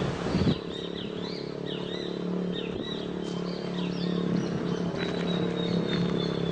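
Small birds chirping, many short rising and falling chirps in quick succession, over a steady low hum.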